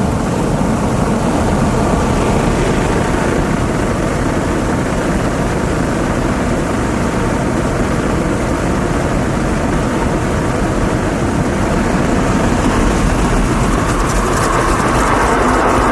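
An automatic car wash heard from inside the car: a steady low rumble of the wash machinery against the body. About two seconds before the end, a rising whoosh builds, with a rapid fine patter.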